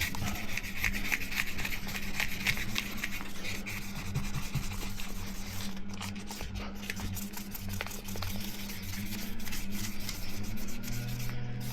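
Wet sandpaper rubbed by hand over a curved polycarbonate dive-housing lens, a continuous scratchy rasp of many quick strokes, sanding out scratches.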